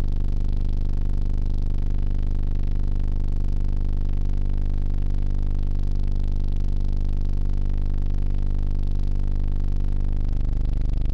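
Synthesizer drone from a Subharmonicon and Null A2 patch driven by light-sensor modules: a dense stack of steady low tones that holds, then shifts and swells near the end.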